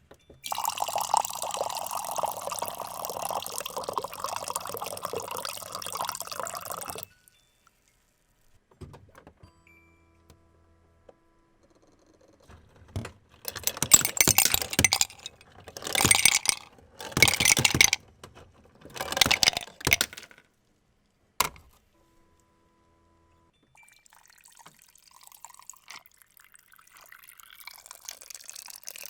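Mini coffee machine brewing: about six seconds of steady pouring with a low hum under it, then a series of short loud spurts of liquid, a single click, and faint trickling near the end.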